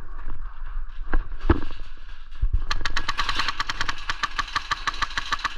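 Airsoft gun firing a long full-auto burst, about a dozen rapid shots a second, starting about two and a half seconds in and stopping near the end. A few scattered knocks come before it.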